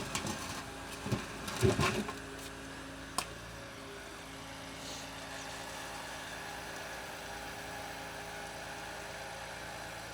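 A machine's engine idling steadily. A few knocks come in the first two seconds and a single sharp click about three seconds in.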